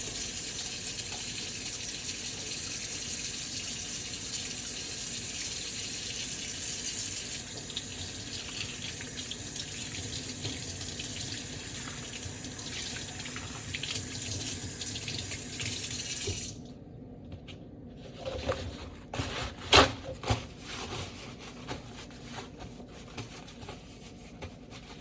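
Tap water running into a sink during hand washing, a steady rush that shuts off suddenly about 16 seconds in. Scattered clicks and knocks follow, with one sharp knock about 20 seconds in.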